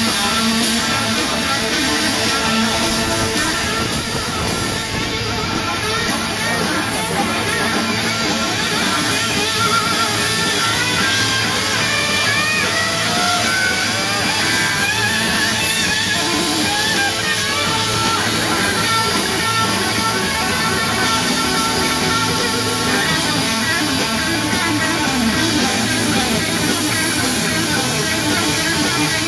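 Guitar-driven rock music with drums, playing steadily.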